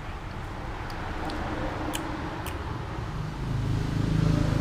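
Road traffic: a motor vehicle's engine rumble that grows louder near the end as it comes close, with a few light clicks.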